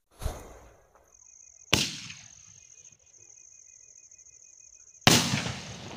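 Cock Blossom skyshot aerial firework firing: a bang just after the start, a sharper crack about two seconds in, and a louder shell burst near five seconds that dies away slowly.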